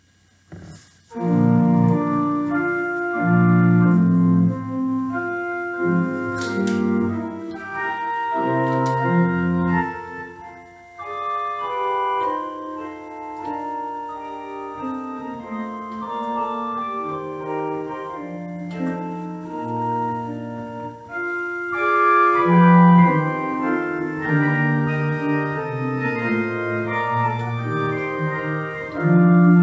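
Church organ playing an introit: held chords in several parts moving from one to the next, starting about a second in.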